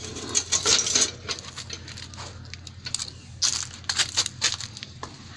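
Long plant leaves brushing and rustling against a phone as it is moved through potted plants, giving irregular crackling, crumpling rustles in two main flurries, about a second in and again past the middle.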